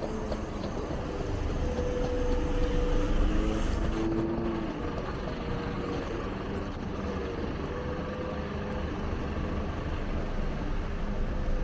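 City street traffic: a steady rumble of vehicle engines and tyres, with a passing vehicle's hum swelling louder about two to four seconds in.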